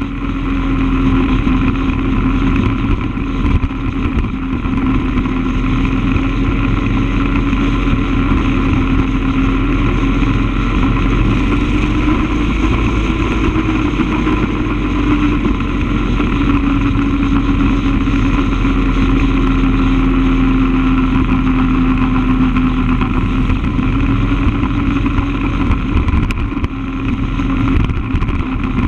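A vehicle's engine running at a steady cruise: a constant hum that drifts slightly up and down in pitch, over steady road noise.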